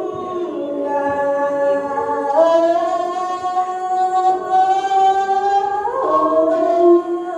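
A woman's voice singing a Tày lượn folk song through a hand microphone and portable loudspeaker, drawing out long held notes that step up and down in pitch.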